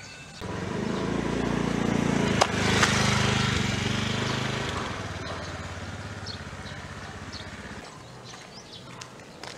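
A motor vehicle's engine approaching and driving past, building to its loudest a few seconds in and then fading away. A single sharp crack comes at its loudest point, as the paper cup on the ground is crushed flat under a wheel.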